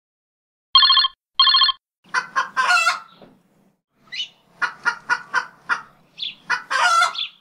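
Two short, identical electronic tones, then a string of short clucking and squawking bird calls, like a hen's, in quick clusters, ending in a longer call near the end.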